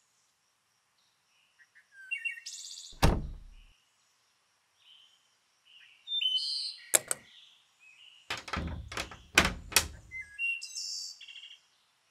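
A wooden apartment front door shuts with a thunk about three seconds in. A sharp click and a quick run of knocks and taps follow later. Small birds chirp on and off throughout.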